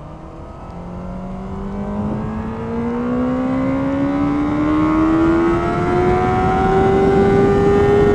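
Honda CBR600RR sport bike's inline-four engine accelerating hard in one gear, most likely second, its pitch climbing steadily and unbroken as the revs rise. Over it is a growing rush of wind and water spray from the soaked track.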